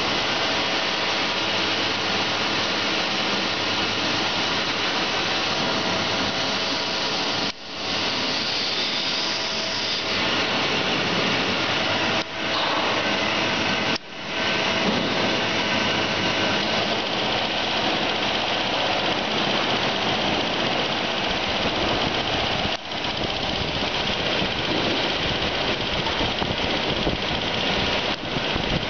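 Steady loud workshop machinery noise, a dense hiss over a low running hum. It cuts out briefly a few times, in the middle and toward the end.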